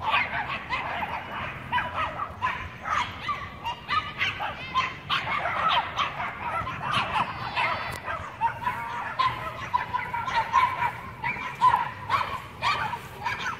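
A pack of Chihuahuas yapping rapidly and without pause in high-pitched barks. A drawn-out, wavering whine comes in over the last few seconds.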